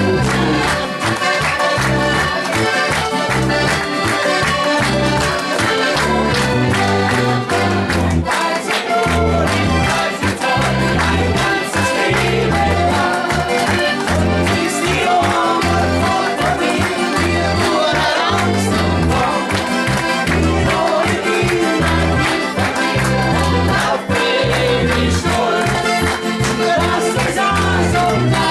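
Live folk-pop band music led by an accordion over a steady, regular bass beat.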